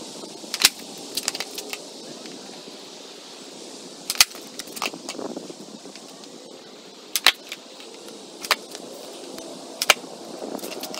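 Skateboard on a concrete driveway during heelflip attempts: a string of sharp cracks, the tail snapping down and the board slapping back onto the concrete, a second or more apart. The four loudest come about half a second in, about four seconds in, just past seven seconds and near ten seconds, with lighter knocks between them.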